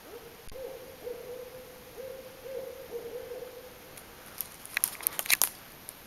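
Barred owl hooting: a rhythmic series of about six low, steady-pitched hoots over the first four seconds, the barred owl's 'who cooks for you' call. A short burst of crunching clicks follows about four and a half seconds in.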